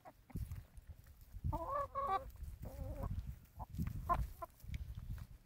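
Hens clucking, with several short pitched calls, while they peck at a frozen block of vegetables; dull low thumps come and go underneath.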